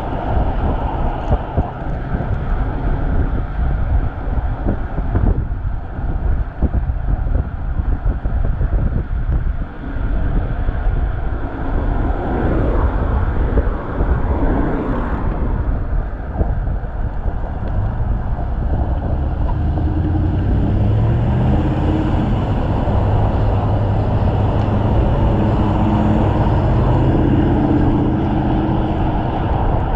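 Motor traffic on a busy road heard from a moving bicycle, a steady low rush of passing vehicles. About two-thirds of the way through, a steady low engine drone sets in and holds.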